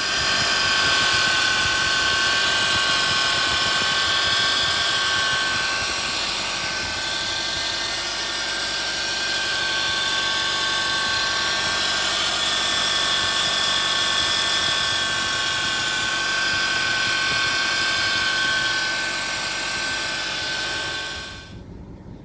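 Subaru Legacy's EJ20 flat-four engine running with a steady high-pitched whine over a hiss, cutting off just before the end. This is the abnormal noise the owner traces to a worn alternator and idler pulley on a 140,000 km engine.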